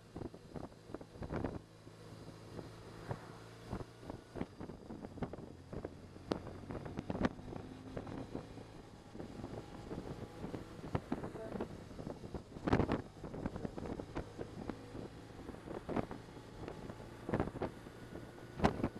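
Wind rushing and buffeting against the microphone of a BMW touring motorcycle at road speed, with frequent short gusts over the low, steady hum of the engine.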